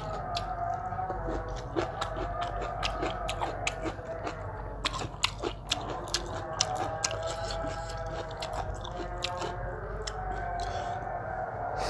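Mouth sounds of eating: chewing and biting food, with frequent short sharp clicks and smacks.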